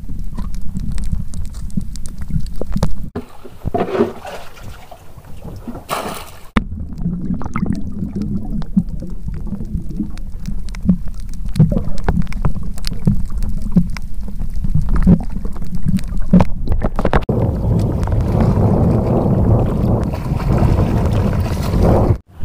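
Muffled underwater water noise picked up by a submerged camera: a low rumble with many small clicks and knocks, breaking off briefly twice in the first seven seconds and growing fuller near the end.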